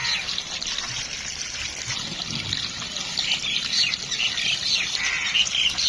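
Water trickling and splashing as chicken feet are rinsed and dropped into a pot, with small birds chirping over it.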